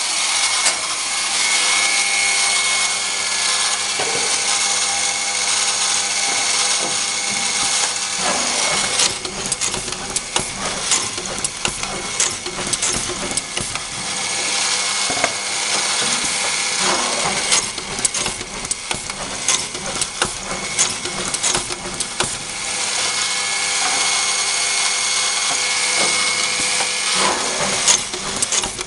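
OMAL L1 dowel inserting and drilling machine starting up suddenly and running with a steady motor whine. From about eight seconds in, and again near the end, its bits work into a wooden panel with a dense, irregular clatter of clicks and knocks.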